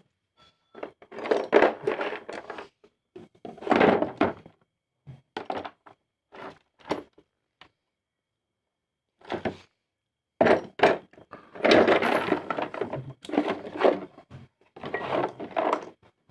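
Metal hand tools clattering and clunking against each other in irregular bursts of knocks, with a few short metallic rings among them.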